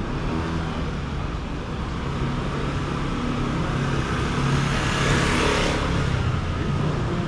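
Car driving past on the street: a steady low engine hum, with tyre and road noise swelling to a peak about five seconds in as it passes, then fading.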